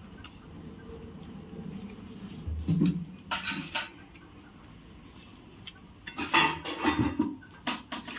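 Utensil scraping and clinking against a cooking pan in two short bouts, about three seconds apart, as mustard paste is worked into the vegetables.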